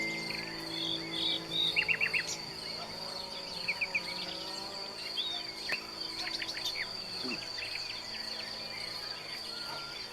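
Crickets trilling steadily and high, with scattered short bird chirps over them, including a quick run of four notes about two seconds in.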